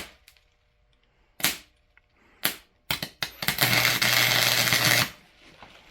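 Electric welding arc on low power tacking a spark plug to steel: a few short sharp snaps as the arc strikes, then a steady crackling arc for about a second and a half that cuts off.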